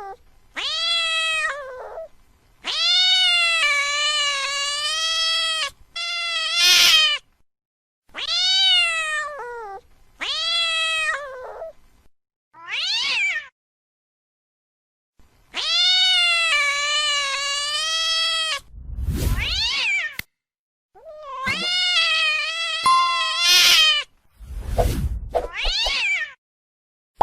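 Angry cat yowling: a string of long, wavering, drawn-out yowls, each one to three seconds, with short pauses between and a few harsh, noisy outbursts.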